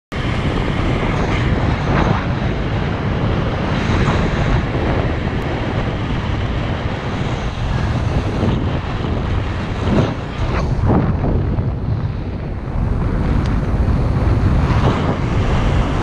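Strong wind buffeting the microphone of a paraglider pilot's camera in flight: a loud, steady rumble that swells and eases in gusts.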